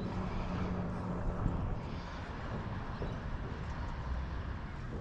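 A distant engine drone that fades away about two seconds in, over steady outdoor noise and wind on the microphone.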